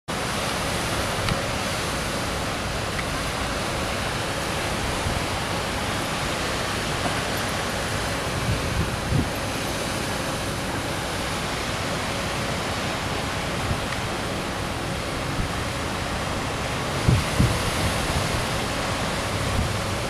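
Steady wash of wind and distant beach surf. Wind buffets the microphone in a few short low gusts, about nine seconds in and again near the end.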